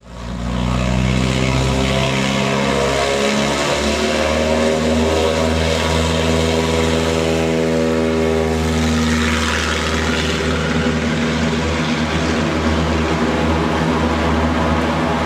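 Light bush plane's piston engine and propeller at takeoff power as it rolls along the gravel bar and lifts off, loud and steady, its pitch sliding slightly downward as it passes.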